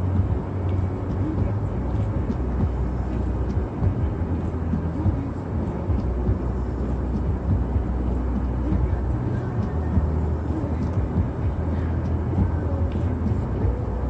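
Steady low rumble of a car, heard from inside the cabin, with faint scattered ticks over it.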